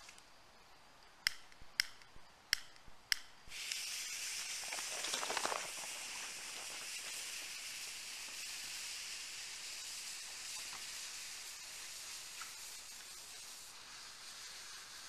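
Four sharp clicks, then a slow-burning fuse catches and fizzes with a steady hiss, swelling briefly a couple of seconds after it lights.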